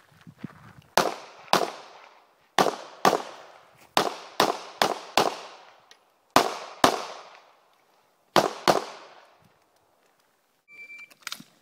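Rapid pistol fire from a SIG Sauer P226 during a practical-shooting course of fire: about a dozen sharp shots, mostly in quick pairs with short pauses between groups, each trailing off in an echo.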